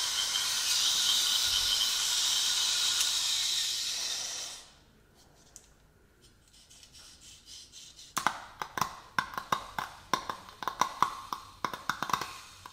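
Electric straight grinder with an abrasive wheel running with a steady high-pitched whine, then cutting out about four and a half seconds in: the already damaged tool has failed. After a short quiet, a run of sharp clicks and rattles as the dead grinder is handled and checked.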